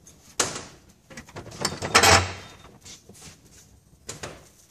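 Metal clanks and scraping as a steel bench vise is loosened and a section of a Graco piston pump is lifted out of its jaws. A sharp knock comes early, the loudest rattling clatter comes about two seconds in, and a smaller knock comes near the end.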